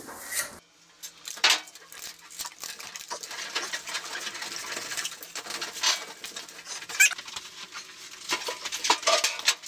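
Adhesive aluminum foil tape and flexible aluminum dryer duct crinkling and crackling as hands press the tape around the duct joint, with a few sharper snaps.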